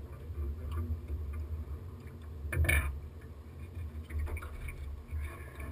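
Low steady rumble of wind and water around a small fishing boat, with one brief knock about two and a half seconds in.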